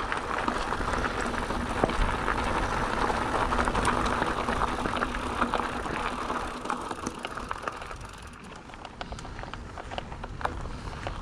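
Mountain bike rolling over a rough trail: steady tyre noise with frequent small clicks and rattles from the bike, easing off and getting quieter about eight seconds in.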